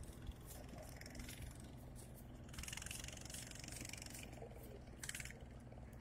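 Faint rattling and rustling of fishing nets being shaken to knock the caught fish out onto the sand, louder in stretches from about two and a half seconds in and again around five seconds, over a steady low hum.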